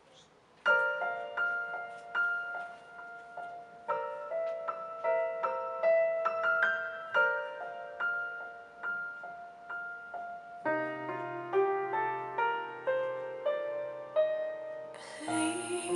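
Slow piano introduction of a ballad played back through Dayton Audio B652 Air bookshelf speakers with AMT tweeters, starting about a second in. Lower notes join about two-thirds of the way through, and a bright shimmer comes in near the end.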